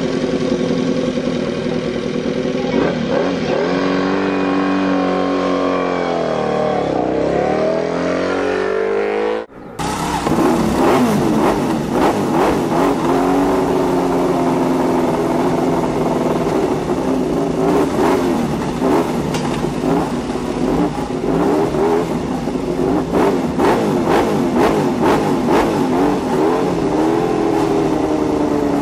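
Honda RC211V MotoGP racing motorcycle's V5 engine revving, its pitch dropping and climbing again through gear changes. About nine and a half seconds in, the sound cuts out for a moment, and a second recording of the engine running hard at high revs follows, its pitch wavering.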